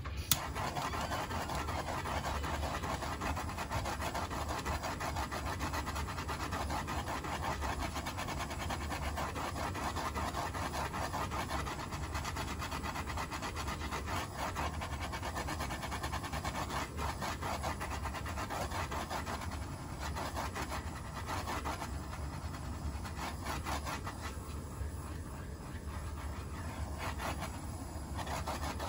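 Handheld torch flame burning with a steady rushing hiss as it is swept up and down over a spinning tumbler, heating the freshly applied matte coat.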